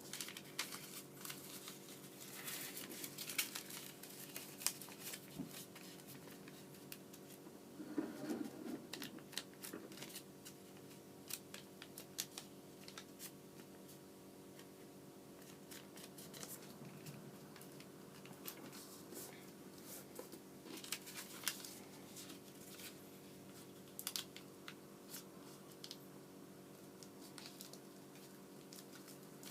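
Origami paper being folded and creased by hand: scattered crinkles and rustles of paper, over a faint steady hum.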